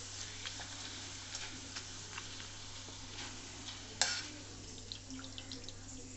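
Papad (appalam) pieces frying in hot oil in a steel kadai: a soft, steady sizzle dotted with small crackles, with one sharp click about four seconds in.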